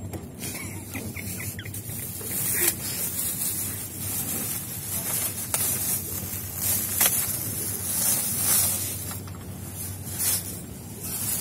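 Clear plastic wrapping on a pack of bed linen crinkling and rustling as it is handled and torn open, in irregular crackles. A steady low hum runs underneath.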